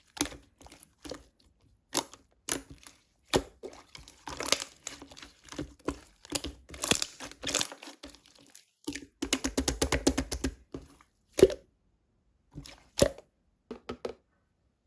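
Clear slime being pressed, stretched and squished by hand, giving irregular sticky crackles and pops of trapped air, with a quick run of rapid popping about two-thirds of the way through. The sound stops shortly before the end.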